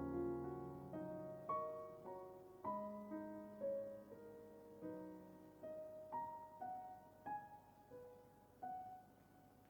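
Soft, slow solo piano music, single notes and chords struck and left to fade.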